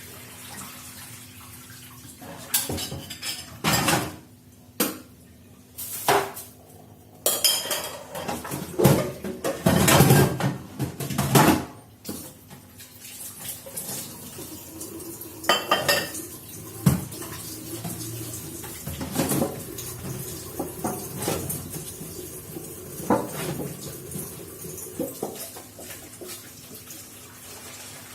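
Dishes and cutlery clattering in a kitchen sink as they are washed by hand, with tap water running. The clattering comes thick in the first half; after that the water runs on with only an occasional knock.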